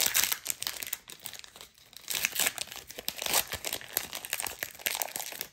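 Foil wrapper of a Pokémon card booster pack crinkling and tearing as it is ripped open by hand, in irregular crackles with a short lull about two seconds in.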